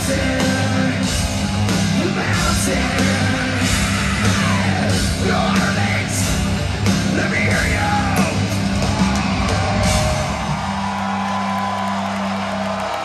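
Live hard rock band with distorted guitars, bass, drums and yelled vocals. The drumming stops about ten seconds in and a held chord rings out, cutting off near the end.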